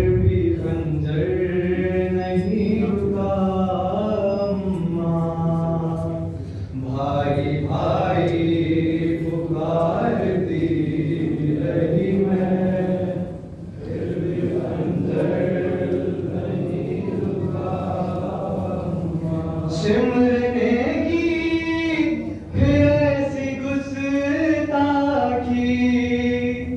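Voices chanting a slow Muharram mourning lament in long, held, wavering notes, several voices together, with a couple of brief breaks between phrases.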